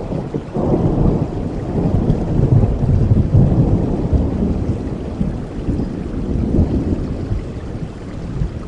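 Steady rain with a long roll of thunder. The rumble swells about half a second in, is loudest over the next few seconds, then slowly dies away.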